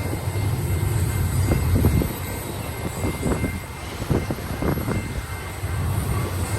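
Double-stack intermodal freight train rolling past: a steady low rumble with irregular clacking from the wheels and cars.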